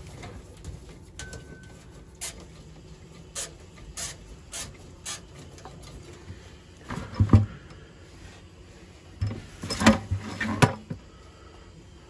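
Scattered sharp clicks, then two clusters of clunks and knocks about seven and ten seconds in, from hands and tools working among a gas boiler's pipes and valves.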